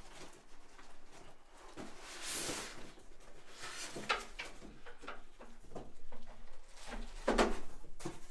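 Packaging being handled as a boxed dot-matrix printer is lifted out: its plastic bag rustling and styrofoam and cardboard scraping, with irregular knocks and a louder rustle and knock near the end.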